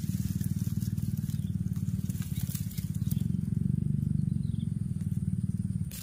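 A small engine running steadily, a low, rapidly pulsing drone at an even level.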